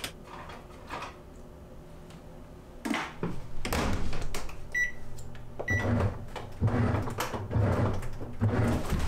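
Clicks and a thump from the lid and detergent cap of a National top-loading washing machine, then two short high beeps from its control-panel buttons about five and six seconds in, followed by low, regular pulses as the machine starts its cycle.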